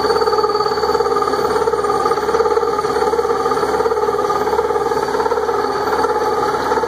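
Barber-Colman gear hobbing machine running, its rotating hob cutting helical teeth into a gear blank: a loud, steady mechanical whir.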